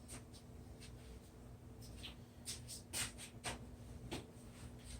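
Scattered light clicks and scraping of tools being handled and picked up, a few sharper clicks about three seconds in, over a faint steady hum.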